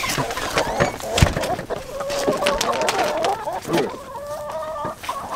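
A flock of backyard hens clucking over one another as they crowd around someone bringing treats. A few sharp knocks and a heavy thump about a second in break through the calls.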